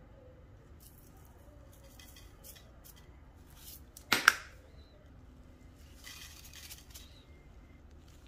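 Seasoning shaken from a plastic spice shaker onto chopped greens in a ceramic bowl: a few light rattling shakes, then a sharp double click about four seconds in, and a soft sprinkling of salt later on.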